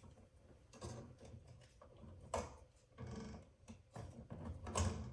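Scattered small clicks and ticks of hand tools and stiff electrical wire being worked in a switch box, with two sharper snaps, about two and a half seconds in and near the end.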